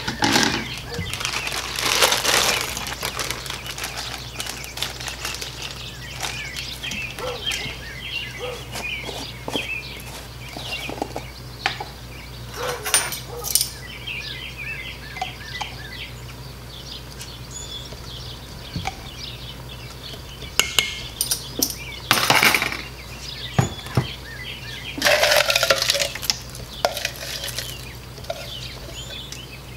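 Chunks of potato, carrot and celery being dropped and tipped into a stainless-steel Instant Pot inner pot, clattering against the metal, with the clink of a bowl and utensils set down on the counter. The loudest clatters come in short spells a few seconds apart.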